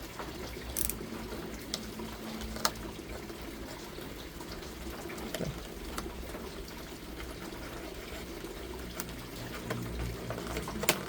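Packaging being opened by hand: scattered sharp clicks and handling noises over a steady hiss.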